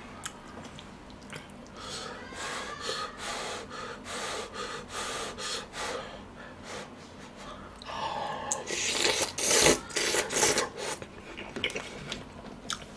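Close-miked eating of pork spine stew: spoonfuls of broth and greens slurped and chewed in short noisy strokes. A louder, noisier stretch of slurping and breathing comes about eight seconds in and lasts a couple of seconds.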